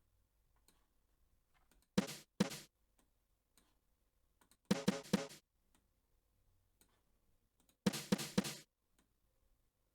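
Drum samples from the Drumslot sampler plugin auditioned in three short bursts of quick hits: two hits, then about four, then about four, with faint clicks in the gaps between.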